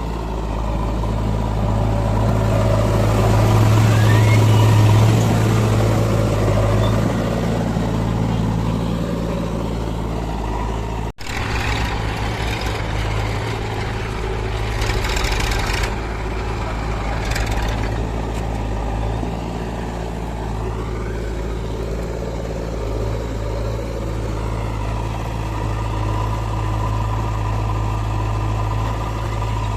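Heavy diesel engine of earth-moving machinery running steadily under load, getting louder around four to five seconds in. The sound drops out for an instant about eleven seconds in, and there are short noisy bursts around fifteen and seventeen seconds.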